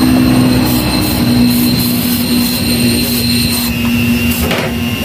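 Aerosol CVT cleaner sprayed in a series of short hissing bursts onto a scooter's open CVT belt and pulley area to flush off dirt, over a steady background hum with a low drone.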